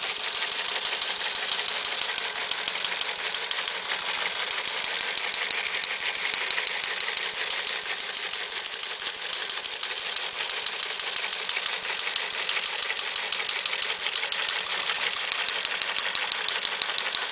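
Teletype Model 28 receive-only page printer running and printing incoming text at 60 words per minute: a steady, unbroken clatter of rapid type strokes from its mechanism.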